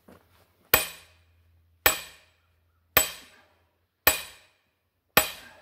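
Sledgehammer striking the steel head of a splitting maul stuck in a hickory round, five sharp metal-on-metal clanks about once a second, each with a brief ring. The maul is being driven deeper into knotty hickory that resists splitting.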